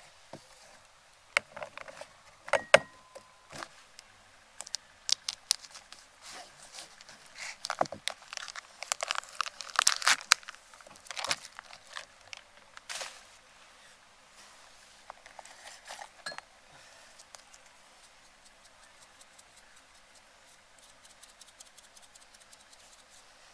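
Irregular clicks, clinks and rattles of small hard objects being handled, busiest and loudest around the middle, then thinning to a few faint taps.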